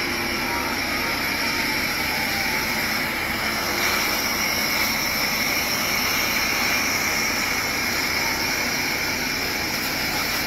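A fire engine's water cannon blasting a high-pressure jet of water: a loud, steady rushing roar with a high whine held over it.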